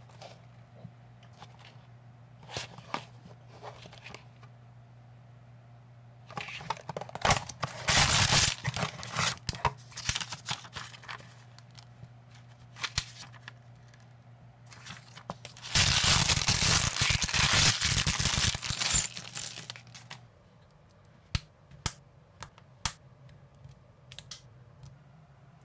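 Unboxing a small cardboard toy-brick set: packaging tearing and crinkling in two loud spells, about seven and sixteen seconds in, with scattered taps and rustles between. Near the end, a few sharp single clicks as the plastic minifigure pieces are snapped together.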